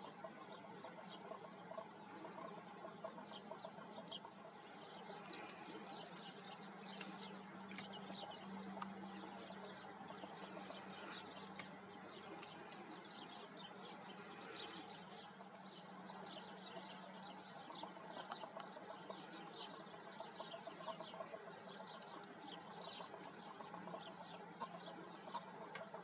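Faint outdoor bird ambience: many small birds chirping rapidly in the background, with a low steady hum underneath.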